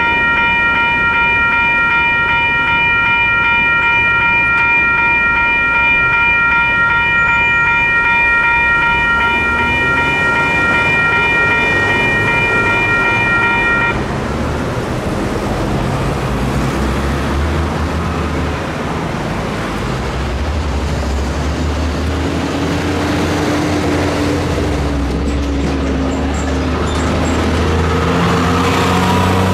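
WCH electronic railroad crossing bell ringing in a rapid, steady ding, stopping abruptly about halfway through as the crossing deactivates and the gates go up. Then road traffic: cars pulling away and driving over the crossing, engines rising and falling.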